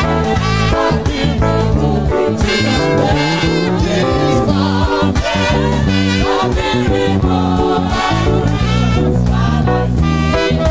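Music with singing over a heavy bass line.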